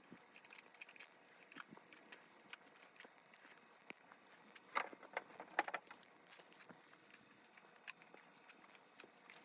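Faint, scattered small plastic clicks and rattles of foam Nerf darts being pushed one by one into the Nerf Rapid Strike's magazine, a few louder clicks about halfway through.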